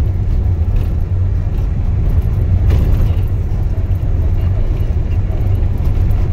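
Nissan NV350 van driving, heard from inside the cabin: a steady low rumble of engine and road noise.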